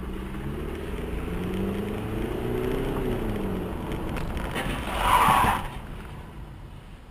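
Car engine heard from inside the cabin through a dashcam, its pitch rising as the car accelerates and then falling as it eases off. About five seconds in, a brief louder burst of noise comes as a collision happens on the road ahead.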